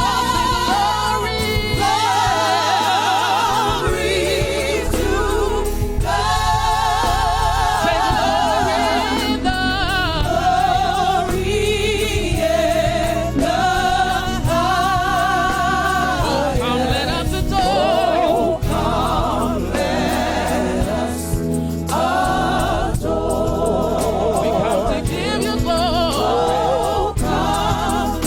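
Gospel choir singing over a band, with sustained notes and vibrato.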